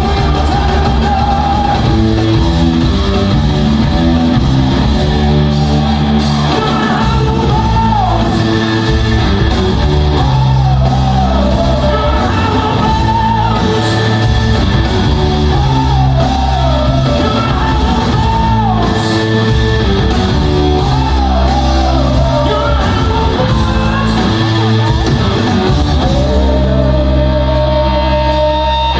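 Rock band playing live in a large hall, loud and steady, with a singer's voice bending in pitch over the band.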